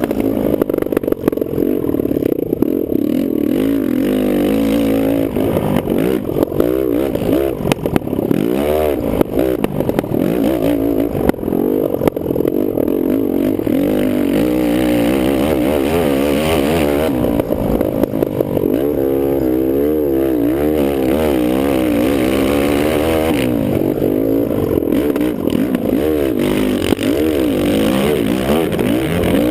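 Kawasaki KFX450R quad's single-cylinder four-stroke engine running hard on a motocross track, its pitch rising and falling continuously as it revs up and backs off.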